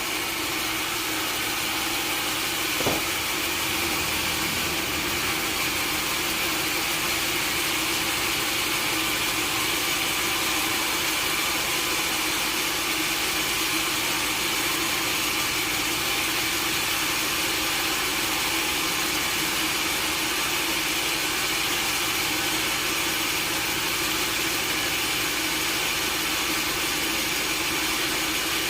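Sawmill machinery running steadily with an even hum, with one sharp knock about three seconds in.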